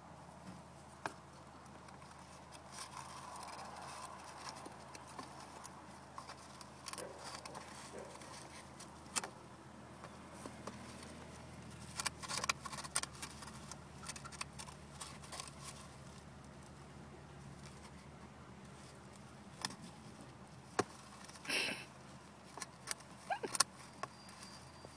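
Light, irregular tapping, scratching and scraping of a pet hedgehog's feet and a cardboard toilet paper tube knocking and sliding against a plastic tub as the hedgehog shuffles about with the tube stuck over its head, with one louder scrape about twenty-one seconds in.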